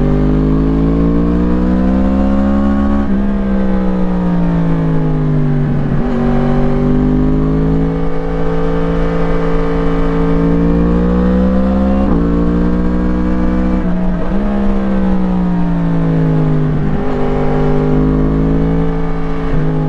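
2017 Yamaha MT-10's crossplane inline-four through an Akrapovič slip-on exhaust, heard onboard while riding. The engine note climbs and falls over and over, with a sudden drop in pitch every few seconds, over a low rumble of wind on the microphone.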